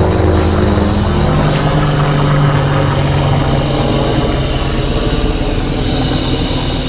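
Helicopter flying low overhead, its rotor chopping steadily and loud. Near the end a high, steady hiss joins in.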